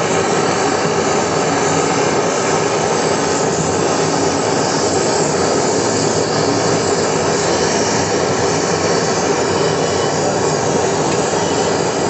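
Hose-fed gas brazing torch burning with a steady, unbroken rushing noise as its flame heats a copper pipe joint for brazing.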